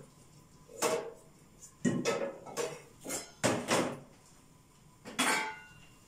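A metal ladle clinks and scrapes against the side of a coated cooking pot as mallow stew is stirred. There are several short knocks, each ringing briefly, most of them between one and four seconds in and one more near the end.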